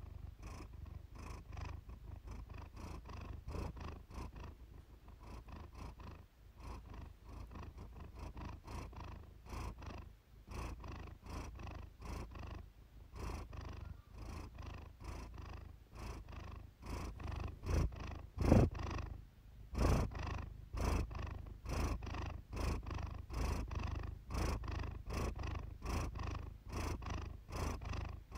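Siamese cat purring steadily, the purr pulsing in an even rhythm about twice a second, with one brief louder burst about two-thirds of the way through.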